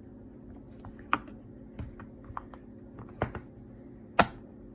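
Silicone push-pop fidget toy having its bubbles pressed: a series of sharp pops, irregular at first, the loudest near the end.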